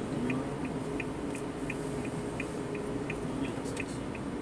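Steady hum of a moving vehicle heard from inside, with a light, regular ticking about three times a second.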